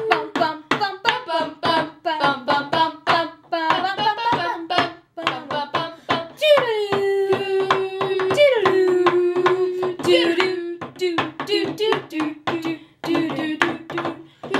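Music with a singing voice over a quick, even beat of about three to four strokes a second, with one long held note around the middle.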